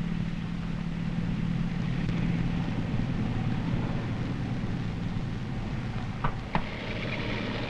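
A column of tanks on the move: a steady engine drone with a low hum that fades about five seconds in. Two short clicks come near the end.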